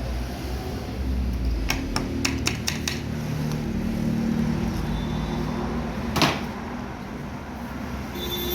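Sharp metal clicks and taps from parts and tools being handled while a steering rack is reassembled: a quick run of about five taps a couple of seconds in, and one louder knock about six seconds in, over a steady low hum.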